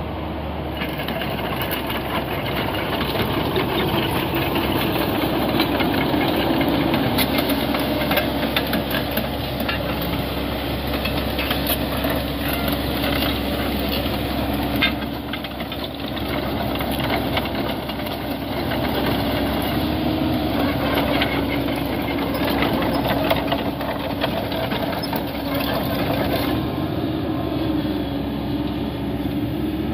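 2013 Caterpillar 307D compact excavator's diesel engine running: a steady drone with a constant hum and irregular clicking and clatter over it, dipping briefly about halfway.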